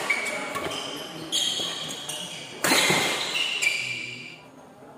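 Badminton rally: a few sharp smacks of rackets on the shuttlecock and short squeaks of shoes on the court floor, echoing in a large hall. The sounds die down near the end.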